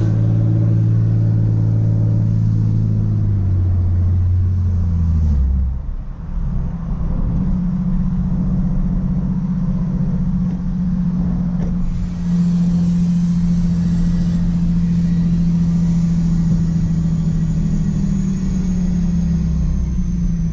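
Skid-steer loader engine running under load, its pitch dropping about a third of the way in, rising again and holding high, then easing off near the end as the throttle changes.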